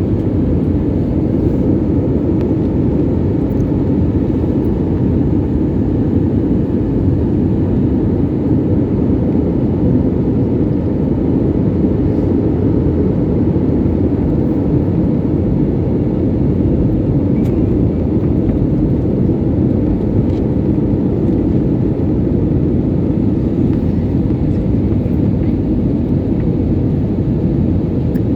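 Passenger airliner in flight heard from inside the cabin: a steady, loud low roar of engines and rushing air that holds even without change.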